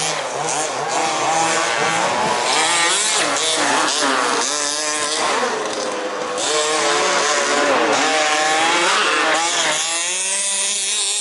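Several 1/5-scale off-road RC race cars' small two-stroke petrol engines, buzzing as they race, each one revving up and easing off in turn so the pitches rise and fall over one another.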